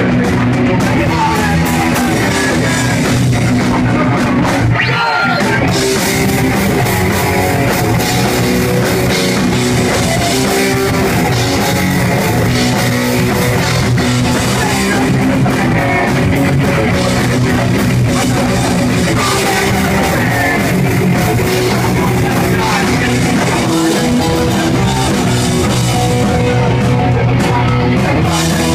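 Live rock band playing loud and without a break: electric guitar and drum kit.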